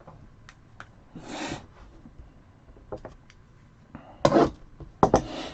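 Cardboard hobby box and card packs being handled and opened: a few light clicks and taps, then short bursts of scraping and rustling, the loudest two near the end.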